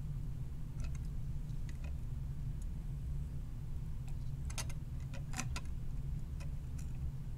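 Hand-soldering pins on a circuit board with iron and solder wire: light scattered clicks and ticks, bunched together about four and a half to five and a half seconds in, over a steady low hum.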